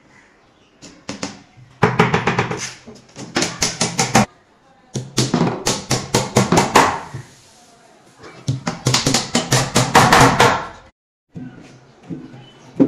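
Hammer driving small nails into a plywood panel: four runs of quick, rapid blows, each a second or two long with short pauses between, then a few fainter knocks near the end.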